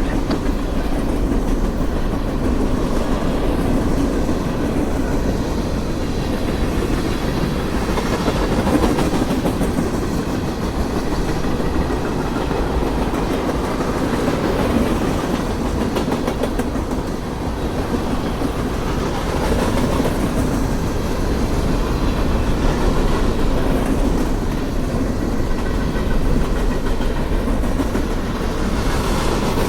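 Cars of a Norfolk Southern mixed freight train rolling past: a steady, continuous noise of steel wheels running on the rails.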